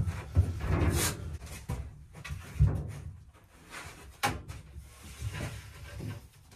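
Irregular knocks and thuds of a thin stainless steel sheet and the wooden board it is clamped to, as the sheet is pushed by hand into a bend. The heaviest thuds come in the first three seconds.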